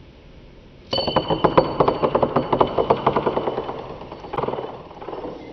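A metal coin spinning and rolling on a polished wooden tabletop: a fast rattle of clicks with a faint metallic ring, starting suddenly about a second in and slowly dying away, with a short second flurry near the end.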